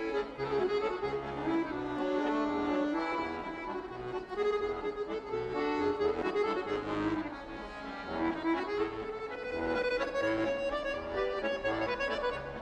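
Accordion music: a folk-style tune with held chords over regularly recurring bass notes.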